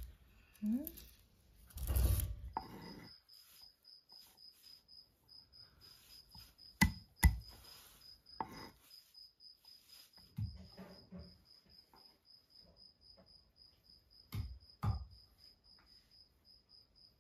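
A cricket chirping steadily, a high short chirp about four or five times a second. A kitchen knife knocks sharply on a wooden cutting board while chopping garlic, twice about seven seconds in and twice more near the end.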